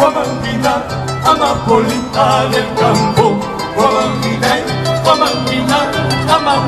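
Live band playing Latin American music: guitars over a repeating bass line, with a wavering melody line above.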